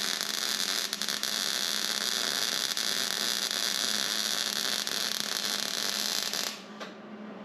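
110-volt wire-feed welder laying a bead: a steady frying hiss and crackle over a low hum that cuts off suddenly near the end. It is run on a slowed wire feed rate to suit the low-powered 110-volt machine.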